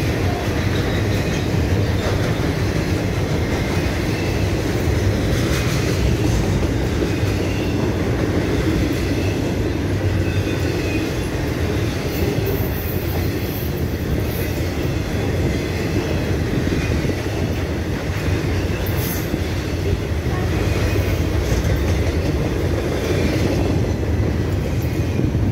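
Freight train's double-stack container cars rolling past close by: a steady rumble and clatter of steel wheels on the rails, with a few brief high-pitched wheel squeals about halfway through and again later.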